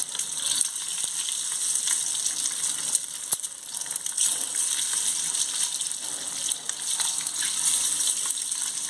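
Hot oil sizzling steadily in a frying pan as halved boiled eggs are laid in one after another, with scattered small pops and crackles.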